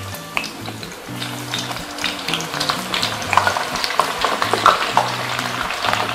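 Sliced bitter gourd dropped by hand into hot oil in a kadai, the oil sizzling and crackling as it fries, growing denser and louder from about two seconds in. Soft background music with low notes runs underneath.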